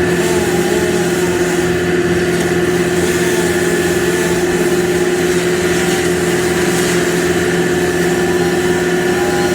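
An engine running steadily at constant speed, a continuous drone with fainter wavering tones above it.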